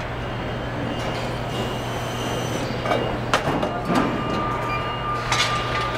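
Factory floor noise: a steady machinery hum with a few clanks and knocks of parts and tools being handled at an assembly station. A thin steady whine comes in about four seconds in.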